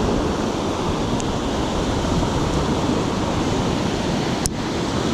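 Steady rush of ocean surf and wind, with a single sharp click about four and a half seconds in.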